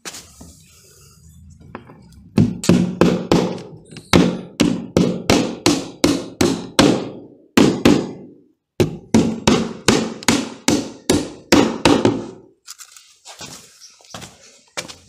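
A hammer drives nails into the timber boards of a concrete footing formwork box. The blows come quickly and evenly, about three a second, in two runs with a short break in the middle, and give way to a few quieter knocks near the end.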